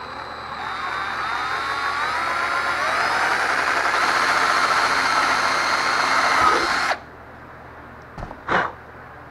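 Cordless drill boring a hole through a plastic tail light housing. The motor's whine climbs in pitch over the first few seconds, holds steady, then stops abruptly about seven seconds in. Two short knocks follow near the end.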